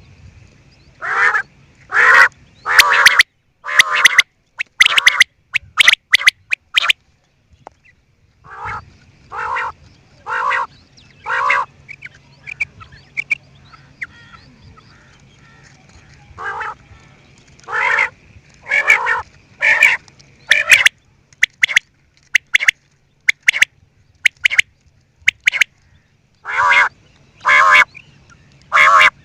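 Quail calling: loud, harsh calls repeated in runs of two to four, each under half a second long, with sharp clicks between them. A faint steady high tone and a low hum run underneath.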